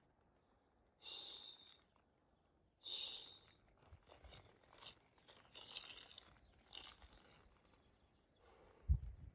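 Faint rustling of a nylon down sleeping bag and tent fabric being handled, in short bursts mixed with breaths. A dull thump near the end.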